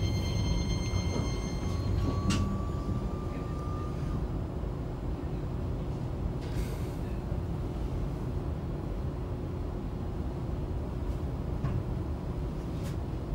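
Hiroden 5100-series Green Mover Max low-floor tram, car 5108, heard from inside while running: a steady rumble of wheels on rail with a faint motor whine that rises slightly early on. There are a few brief knocks.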